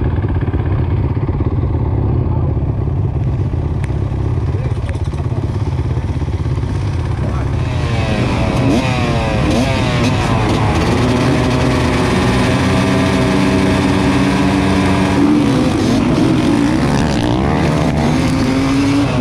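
A field of motocross bikes at the start gate, including a Beta RR 250 two-stroke right at the microphone, idling steadily. About halfway through, the engines are revved in rising and falling sweeps and then held at high revs. Near the end the bikes launch from the gate under full throttle.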